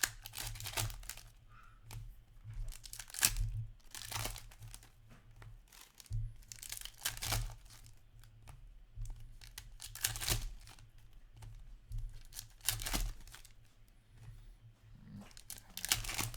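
Hockey card packs being torn open by hand: about a dozen short bursts of wrapper tearing and crinkling, a second or two apart.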